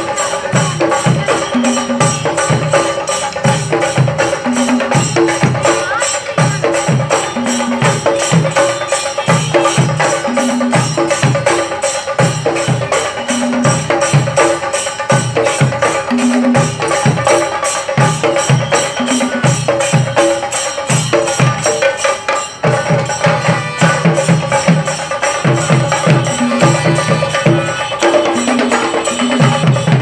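Chenda drums beaten with sticks by a street percussion troupe in a fast, unbroken rhythm, with heavier low beats recurring every few seconds.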